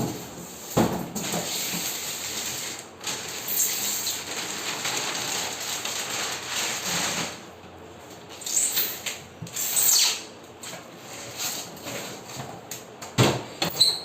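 Handling noises of unpacking: a long scraping rustle with a knock before it, further scrapes, and a few knocks near the end.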